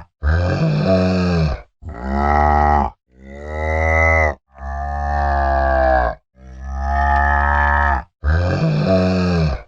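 A cow mooing: six drawn-out moos in a row, each lasting one to two seconds, separated by short silent gaps.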